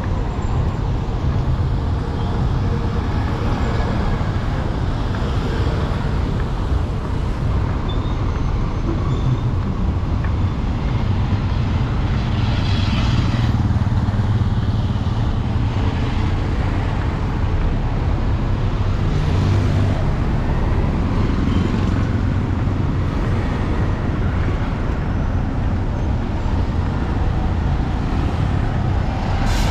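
City street traffic: engines of passing vehicles running in a steady hum, with a couple of them passing closer and louder partway through.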